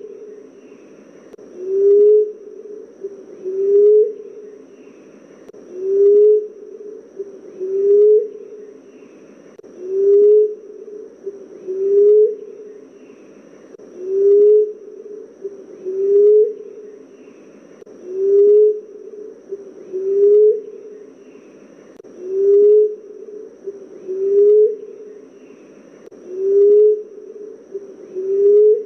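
Emerald dove cooing: a low, soft coo that rises in pitch, repeated evenly about every two seconds. A faint, steady high hiss runs behind it.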